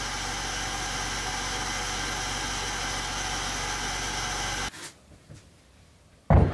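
Steady hiss and hum of powder-coating equipment running, cutting off abruptly about three-quarters of the way through. Then a loud knock near the end.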